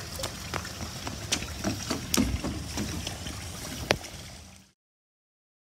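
Running footsteps slapping on a paved pool deck, about three a second, over the steady splash of water spilling from a pool waterfall; the sound fades out about four and a half seconds in.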